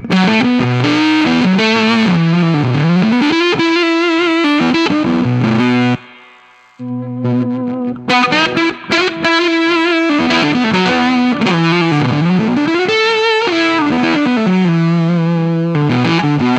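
Electric guitar through a Kingtone MiniFuzz Si, a silicon Fuzz Face-style fuzz pedal, into a Dumble-style amp and 2x10 cab with Celestion Greenbacks, with spring reverb on. It plays a distorted lead phrase of sustained single notes with bends and slides. About six seconds in the playing breaks off briefly, then resumes.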